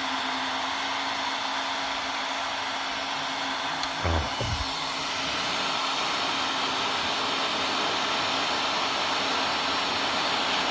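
Electric heat gun blowing steadily at its maximum setting, a continuous rush of air with a faint steady hum, as it shrinks heat-shrink tubing.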